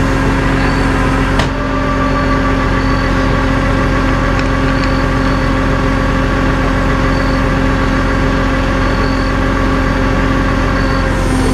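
A truck engine idling steadily, with one brief click about one and a half seconds in.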